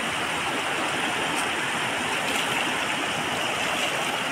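Mountain river rushing steadily over rocks, a constant hiss of flowing water.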